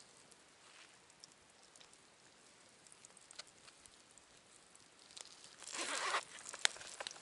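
Faint, scattered crackling of a small wood campfire, then about six seconds in a brief scraping rustle of about half a second, followed by a few sharp clicks.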